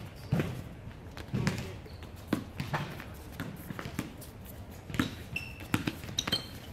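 Basketball bouncing on an outdoor hard court: irregular dribbles and thuds as players run the ball, with a couple of short sneaker squeaks near the end.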